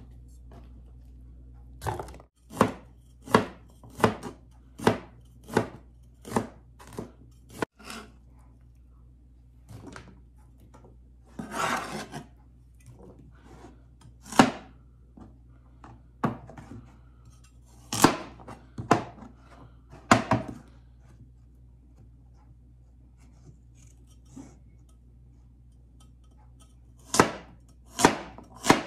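A cleaver chopping an onion and then carrots on a plastic cutting board: sharp single knocks, a steady run of about one and a half a second at first, then scattered chops with pauses. A short scraping noise comes about twelve seconds in.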